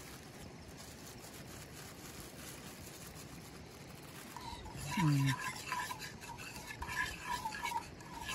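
Besan (gram flour) batter being stirred in a bowl to dissolve the flour. The stirring turns into a run of louder scraping and clicking about halfway through, and a short voice sound comes about five seconds in.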